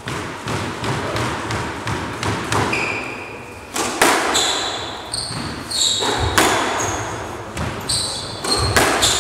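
Squash rally: the ball cracking off rackets and smacking against the court walls in a string of sharp impacts, louder from about four seconds in, with shoes squeaking briefly on the wooden court floor.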